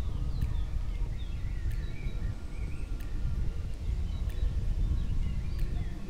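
A steady low rumble, with faint bird chirps above it and soft ticks about every second and a bit.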